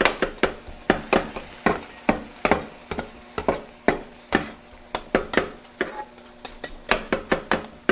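Two metal spatulas striking the steel top of a Vevor 22-inch flattop griddle, chopping sliced chicken breast in cheesesteak style, with frying sizzle underneath. The strikes come at a steady pace of about two to three a second.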